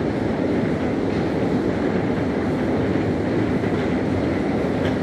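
Long deep-level metro escalator running: a steady, even mechanical rumble from the moving steps and drive.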